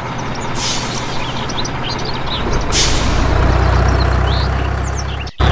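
Heavy truck engine sound effect running, growing heavier after about two seconds, with two short air-brake hisses, one about half a second in and one near three seconds. Small birds chirp in the background, and the sound cuts out briefly just before the end.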